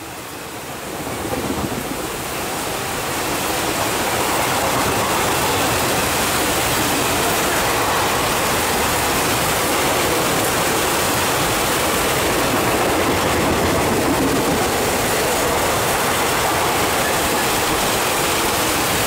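Express train's coaches passing at speed right alongside on wet track: a steady rush of wheels and air mixed with heavy rain. It swells over the first few seconds, then holds steady.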